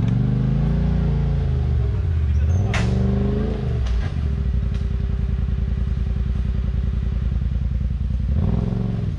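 Side-by-side UTV engine revving up and down, then held at a steady speed for several seconds before revving up again near the end, with a sharp metallic clank about three seconds in.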